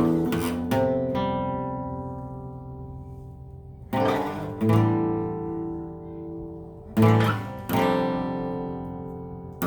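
Slow instrumental guitar played by strumming chords. The chords come in pairs, two strums close together, about every three seconds, and each is left to ring out and fade.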